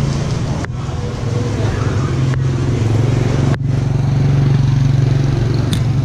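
Motorbike engine running at low, steady speed while riding slowly through a narrow street, getting a little louder about four seconds in, over general street noise.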